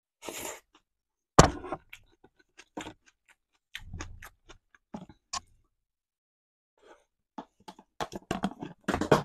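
Table-eating noises: a utensil clicking and scraping against a bowl and a plastic food container, with chewing between the clicks. There is one sharp knock about a second and a half in, and a quick run of clicks near the end as the plastic container is handled and tipped.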